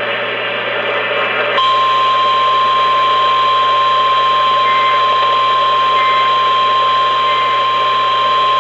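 NOAA Weather Radio 1050 Hz warning alarm tone: radio hiss, then about one and a half seconds in a single steady tone comes on and holds, signalling that a warning message (here a flash flood warning) is about to be read.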